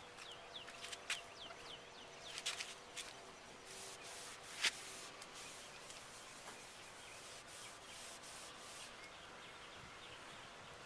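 Faint, steady rubbing of toothpaste by hand over an oxidized plastic headlight lens, polishing off the yellowed haze, with scattered sharp clicks; the loudest click comes about halfway through.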